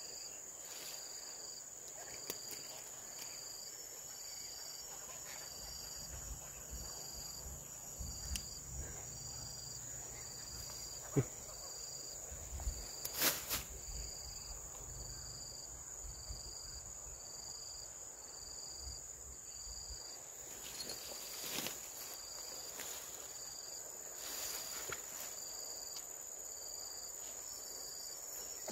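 Insects: a steady high-pitched buzz with a second insect chirping in even pulses about once a second. A few knocks and some low rumbling stand out near the middle.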